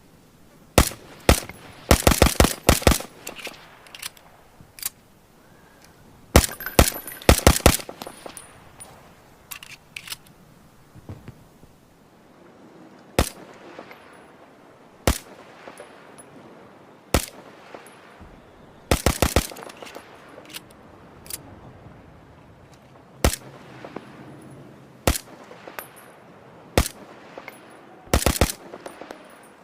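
Suppressed Walther PPK pistol firing: quick strings of shots in the first several seconds, then mostly single shots about every two seconds, with two more quick strings later.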